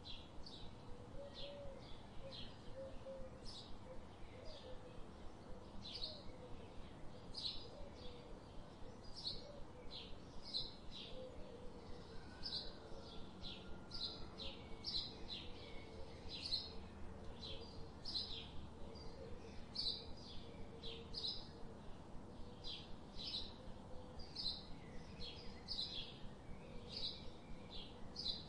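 A bird chirping over and over, short high chirps coming about twice a second.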